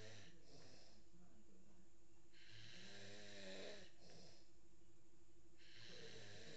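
A sleeping baby boy snoring deeply, three rasping snoring breaths about three seconds apart, each followed by a short softer breath.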